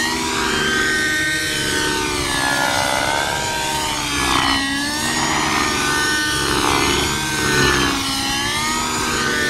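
Radio-controlled model helicopter in flight: its motor and rotors whine steadily, the pitch swinging up and down every second or two as it manoeuvres and passes by.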